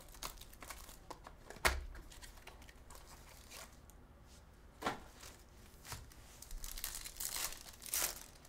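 A cardboard hobby box of 2023 Bowman Chrome baseball cards opened and its foil card packs handled, with a few sharp clicks, then a foil pack wrapper crinkling and tearing open near the end.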